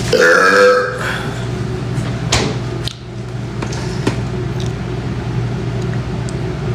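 A man's loud burp lasting about a second, right at the start, over a steady background hum; a couple of faint clicks follow.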